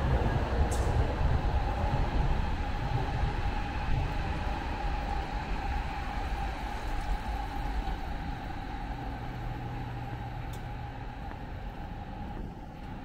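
A train rumbling past and slowly fading away, with a steady whine above the low rumble.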